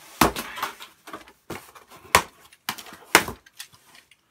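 A corrugated cardboard shipping box being pulled and torn open by hand: about half a dozen sharp scrapes, rips and knocks of cardboard, spaced irregularly.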